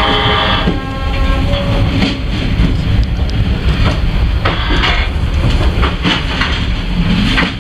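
Steady loud rumble of a moving vehicle with irregular clattering knocks throughout.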